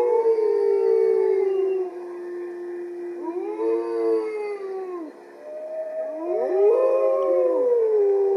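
Wolf pack chorus howling: several howls at different pitches overlap, rising and falling. One long held howl opens it, a second wave comes about three seconds in, and a third builds near the end. It is a wolf howling in protest as his mate is led away, with the rest of the pack joining in.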